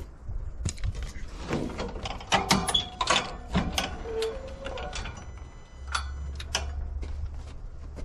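Rear door of a Case TV450 compact track loader being unlatched and swung open: a quick run of metal clicks and clunks, a short squeak about four seconds in, then a few more clicks.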